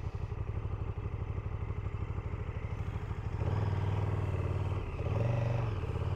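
Motorcycle engine idling with an even pulse, then revving up about three and a half seconds in as the bike pulls away. The revs drop briefly near five seconds and then hold steady.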